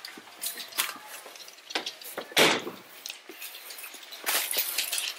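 Scattered clicks and rustling handling noises, with one sharp, loud thump a little under halfway through.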